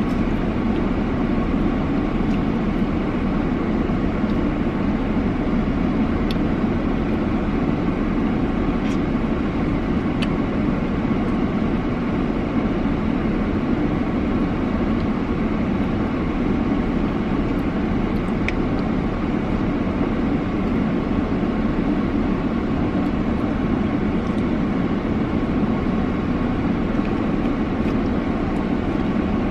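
Steady road and engine noise inside a moving car's cabin, an even low rumble with a few faint clicks.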